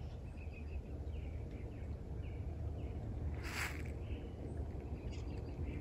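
Rural outdoor ambience: a steady low rumble, a few faint bird chirps, and a brief rustle about three and a half seconds in.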